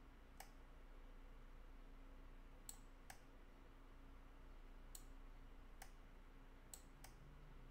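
Near silence with several faint, scattered computer mouse clicks over a low steady room hum.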